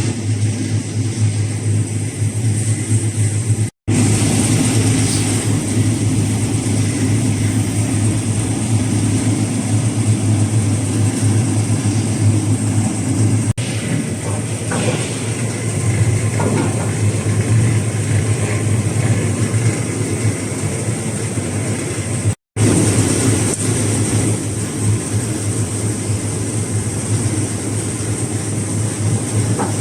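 Commercial brush-type root-vegetable washing and peeling machine running: a steady motor hum under the rushing, rumbling noise of the turning brush rollers. The sound cuts out for an instant twice.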